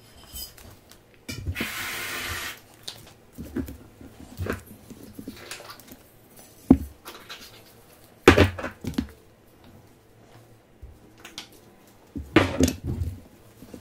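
Hands-on crepe plating: a short hiss, like a whipped-cream aerosol can spraying, about two seconds in, then scattered clicks, taps and clatters of spatulas, a sugar shaker and a glass jar against the plate and wooden table. The loudest knocks come about eight seconds in and again near the end.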